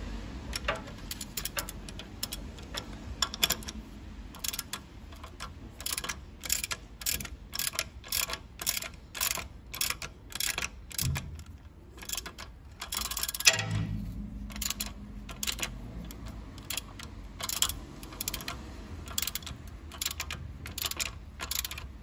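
Ratchet wrench clicking in short runs of quick ticks as a new knuckle arm stud bolt is turned in with a Torx socket on an extension, with one louder knock a little past the middle.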